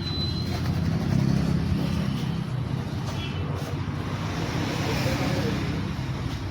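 Keil 85 cc two-stroke petrol chainsaw engine idling steadily.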